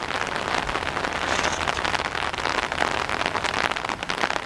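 Light, steady rain falling, a dense spatter of small drop hits.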